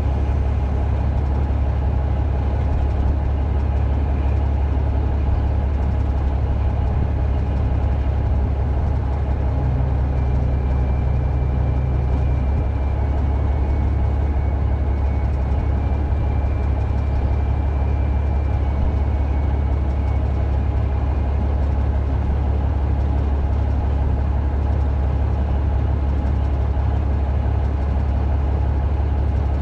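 Diesel engine of a lattice-boom cable-logging machine running steadily at a low, even speed.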